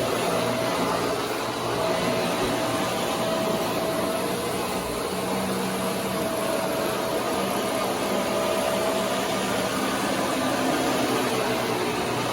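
A Dyson Cinetic Big Ball Animal + Allergy vacuum cleaner running: a steady rushing whir with a constant high hum in it.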